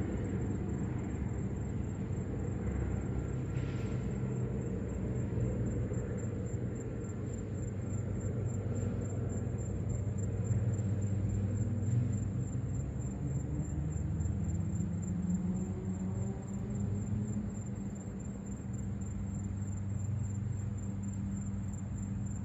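Low, steady rumbling drone of an airplane passing overhead, swelling slightly about halfway through.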